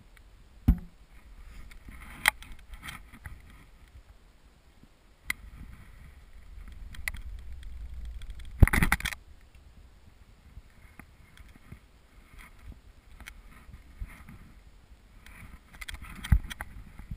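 Recurve bow being shot: a sharp click early on as the arrow is nocked, scattered small handling knocks over a low rumble on the microphone, and a loud thump about eight and a half seconds in as the string is released from full draw.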